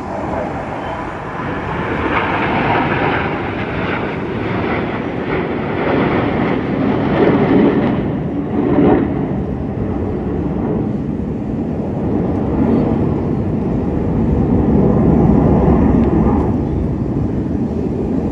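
Formation of eight T-50B jet trainers flying overhead, their single-turbofan jet engines making a continuous rushing roar that swells and eases as the formation passes, loudest about halfway through and again near the end.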